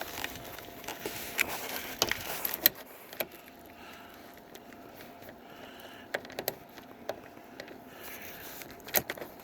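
Irregular sharp clicks and small metallic taps of hands and a tool working the mirror's fasteners and hardware on a car door, over a faint steady hum.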